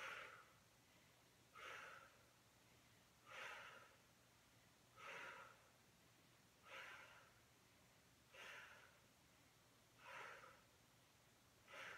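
A woman's faint, audible breaths in time with repeated side-lying leg lifts against a mini resistance band: a short breath every second and a half or so, eight times.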